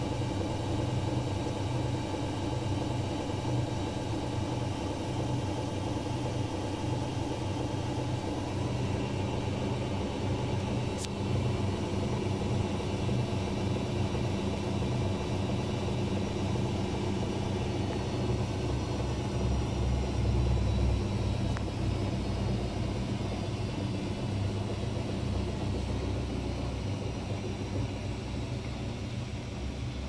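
Daewoo DWD-FT1013 front-loading washing machine running: a steady motor hum with several held tones. The hum swells a little lower and louder about twenty seconds in.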